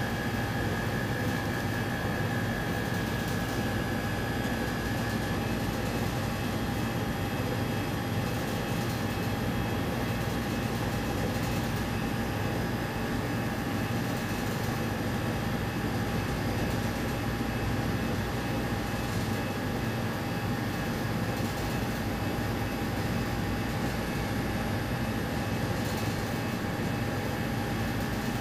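Steady whirring hum of running equipment, with a constant high whine over it that is a little stronger in the first few seconds.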